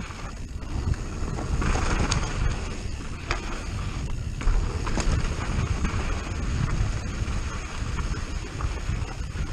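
Wind buffeting the microphone of a handlebar camera on a downhill mountain bike running fast over a dry dirt trail, with tyres on the dirt and a few sharp clicks and knocks from the bike over bumps.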